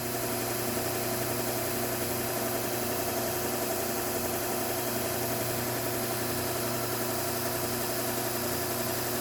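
Bucktool slow-speed belt sharpener running steadily with an even motor hum.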